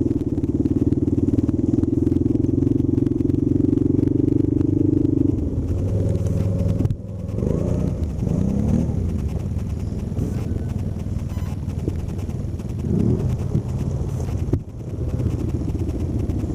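Quad bike (ATV) engine running at a steady speed, then easing off to a lower note about five seconds in, with a few brief rises and falls in engine speed.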